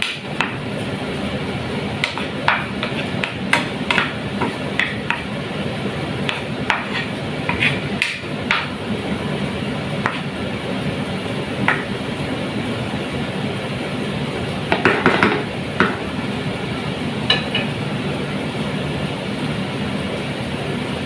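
Wooden spoon knocking and scraping against a frying pan while stirring sautéing onions, in irregular clicks through the first half and again in a cluster about three-quarters of the way in, over a steady frying hiss.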